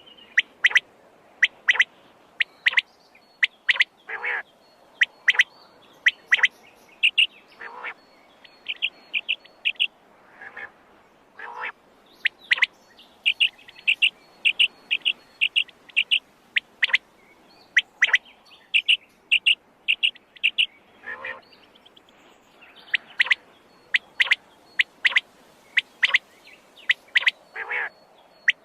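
Quail calling over and over: short, sharp calls, some in quick runs of clipped notes, with more than one call pattern overlapping.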